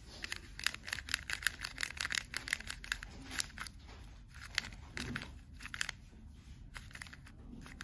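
MGC Square-1 puzzle being turned by hand: a run of sharp plastic clicks as its layers snap round, rapid at first and then more spaced out. Very clicky.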